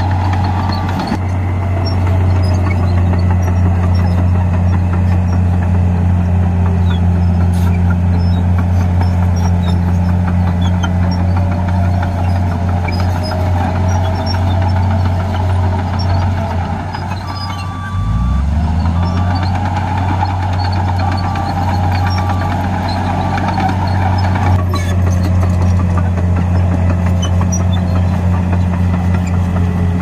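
Crawler bulldozer's diesel engine running with a steady low drone as it works the dirt. Just past halfway the engine note sags and then picks up again, and a reversing alarm beeps about once a second for several seconds as the dozer backs up.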